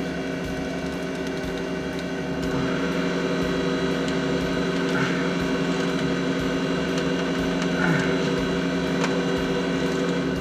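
Steady machinery hum made of several even tones, a little louder from about two seconds in, with faint scraping about halfway through and near the end as a spin-on oil filter is twisted loose with a leather belt.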